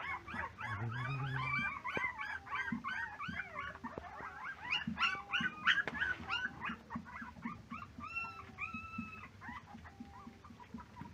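Several puppies whining and yipping in quick, overlapping high-pitched cries that thin out after about seven seconds.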